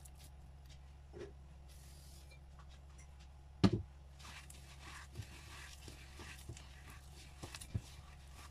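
Hands squeezing softened butter, then kneading it together with granulated sugar in a bowl: a faint, gritty smearing and rustling with small clicks. A single sharp knock a little over three and a half seconds in is the loudest sound, over a steady low hum.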